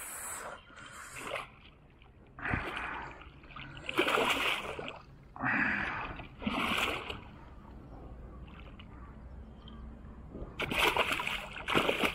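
A hooked snakehead thrashing at the water's surface, splashing in repeated bursts: about five splashes in the first seven seconds, then two louder ones near the end.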